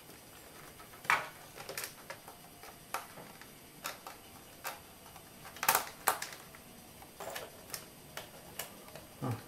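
Irregular sharp plastic clicks and taps as the bottom access panel of an Acer Aspire 5680 laptop is pried and worked open with fingers and a small screwdriver, a pair of louder clicks about six seconds in.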